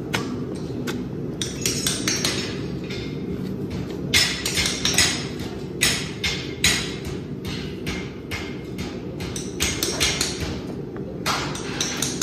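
Hoof knife carving dead sole out of a horse's overgrown hoof: irregular sharp scraping cuts, some in quick runs, over a steady low background hum.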